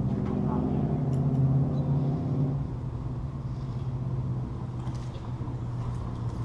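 Steady low rumble and hum of motor traffic crossing the road bridge overhead, louder for the first two and a half seconds and then fading, with a few light clicks.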